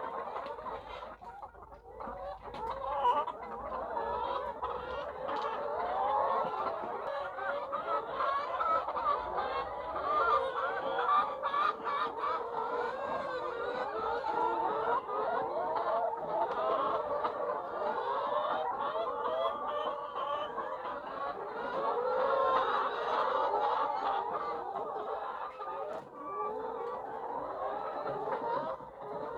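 A flock of laying hens clucking and calling without a break, many voices overlapping into a dense chatter.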